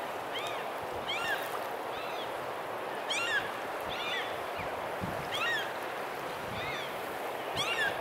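Gulls calling over open water: short, arched, mewing calls repeated about once a second, several birds overlapping, over a steady rush of wind and water.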